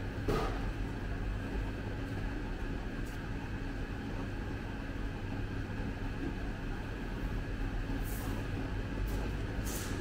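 Steady low hum of indoor ventilation, with a few faint clicks of a fork against a food box.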